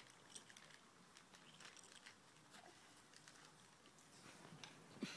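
Near silence, with faint scattered light ticks and rustles.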